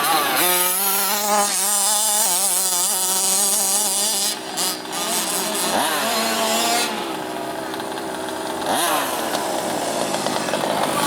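Small two-stroke petrol engine of a large-scale FG RC monster truck running under changing throttle, its pitch wavering up and down, then revving up sharply twice, about six and nine seconds in.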